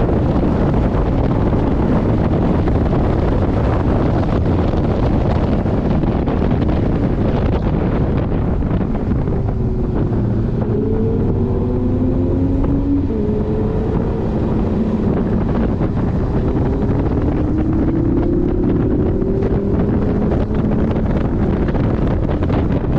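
Porsche 718 Boxster GTS at speed on a race track: heavy wind and road noise throughout, with the engine note rising and falling in pitch from about nine seconds in.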